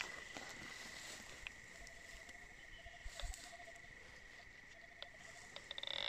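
Quiet night ambience: faint insect chirping and a faint steady high tone, with a few small clicks. The deep-seeking metal detector is silent, giving no target signal.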